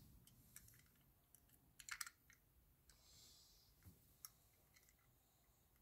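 Faint, scattered clicks and taps of a small die-cast toy car being turned over in the fingers, with a quick cluster of clicks about two seconds in.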